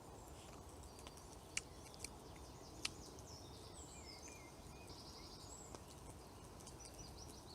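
Faint woodland birdsong, short chirps and a brief trill, over a low steady background hum of outdoor ambience, with three sharp clicks in the first three seconds.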